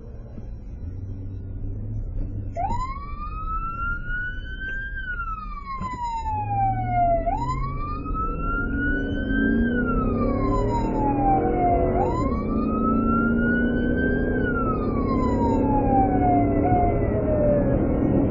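Emergency vehicle siren wailing, starting a few seconds in: three slow cycles, each rising and then falling in pitch over about five seconds. Under it, the responding vehicle's engine and road noise grow louder as it gathers speed.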